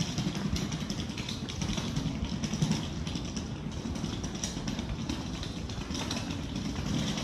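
Train in motion: a steady rumble with many small rattling clicks.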